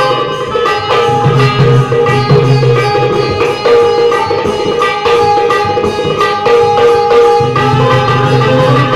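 Live Indian folk music: a benjo (Indian banjo) playing a plucked, sitar-like melody over fast dholki drumming, with deep drum strokes and sharp slaps in a steady rhythm.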